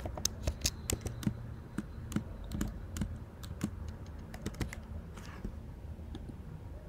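Typing on a computer keyboard: quick, irregular key clicks that thin out after about five seconds.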